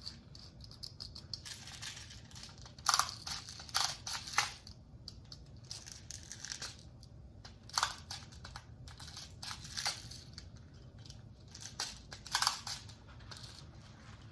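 Handling noises from an airsoft gas pistol and its magazine: irregular short rustles, clicks and brief hissing bursts, a dozen or so scattered through the stretch, with the loudest around three to four seconds in and near twelve seconds.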